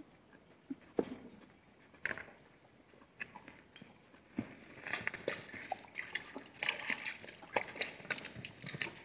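Hartmann's mountain zebras' hooves clattering on gravel as the group walks away from the waterhole, the clatter turning dense about five seconds in. Before that, a few scattered clicks and knocks as they stand drinking.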